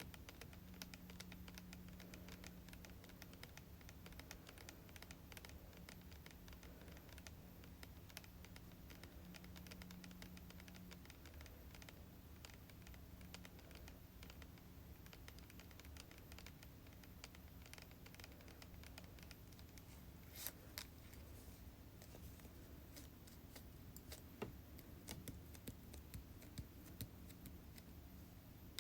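Light, quick tapping on hair-product bottles and containers, a steady run of soft clicks with a few sharper taps about two-thirds of the way through and more toward the end.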